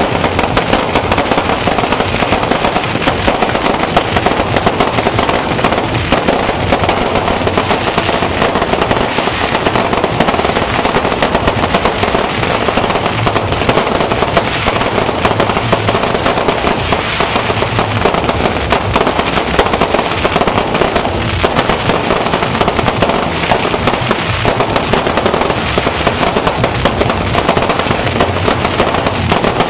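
Fireworks and firecrackers going off in a dense, unbroken crackle of rapid bangs.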